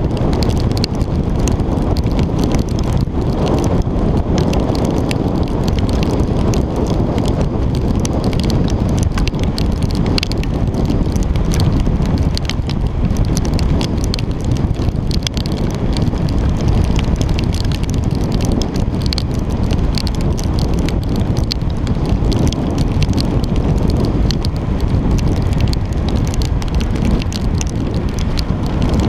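Steady wind noise on a bike-mounted camera's microphone while riding at speed in the rain, with a constant scatter of raindrops ticking on the camera housing.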